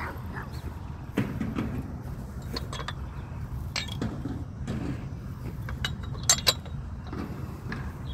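Chain-link fence mesh rattling and clinking as a hand pushes and shakes it: a string of sharp metallic clinks, the loudest pair about six seconds in, over a steady low rumble.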